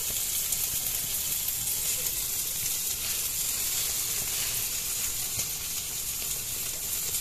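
Marinated chicken legs (chicken inasal) sizzling steadily on skewers over hot charcoal.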